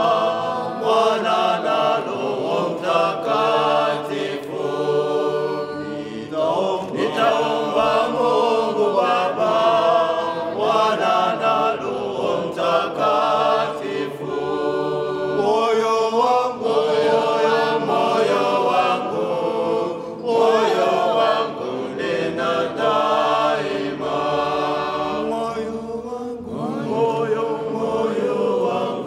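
Small youth choir singing an Orthodox religious hymn a cappella, several voices together in sung phrases.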